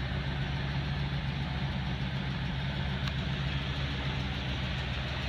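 A 2003 Ford F-250 Super Duty pickup's engine idling steadily.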